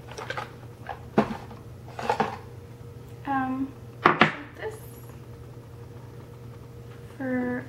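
Several sharp clicks and taps of a makeup brush and small plastic cosmetic containers being handled, the loudest a little after four seconds in. A short, level-pitched hum of a voice comes twice.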